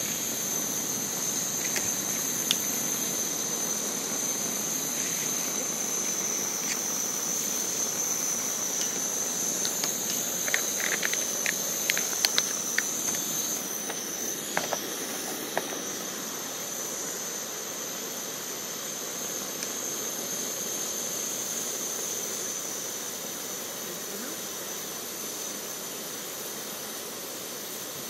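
Steady high insect drone over a constant hiss, with a scatter of light clicks and taps about ten to thirteen seconds in and a few more soon after.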